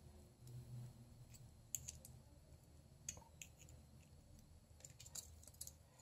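Faint, scattered light metallic clicks of hands working a small driver on the tight pivot screw of a Leatherman Charge multitool being taken apart, over a faint low hum.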